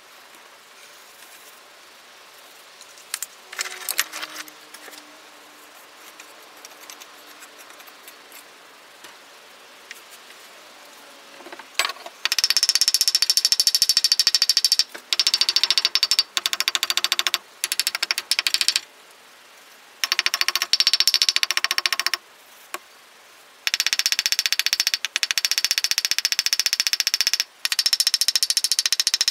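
A wooden stick rapping rapidly against a sprue pin set in rammed foundry sand, loosening it in the mould so it can be drawn. A few scattered knocks come first, then from about twelve seconds in there are runs of fast, even taps a few seconds long with short pauses between them.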